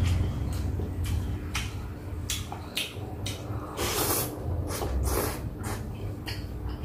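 Close-up eating sounds: wet mouth smacks and clicks while chewing Cambodian rice noodles, with two louder slurps of noodles about four and five seconds in.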